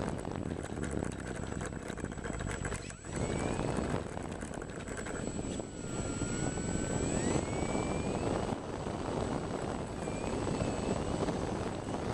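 Radio-controlled model airplane in flight, its motor whine gliding up and down in pitch over a steady rushing noise.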